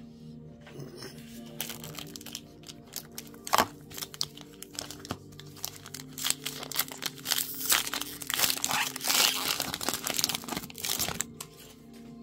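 Foil Pokémon booster pack wrapper crinkling and tearing as it is ripped open and handled, the crinkling densest for a few seconds near the end. Soft background music with steady held notes plays underneath.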